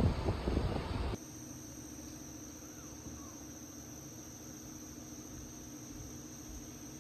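Insects trilling steadily in one unbroken high-pitched tone, typical of crickets, over a faint low hum. A loud rushing noise covers the first second and cuts off suddenly.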